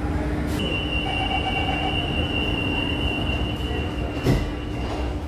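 Inside a moving CT251 metro train carriage: a steady, high-pitched wheel squeal starts about half a second in and runs until just before the end, over a steady low running hum. There is a single thump a little after four seconds.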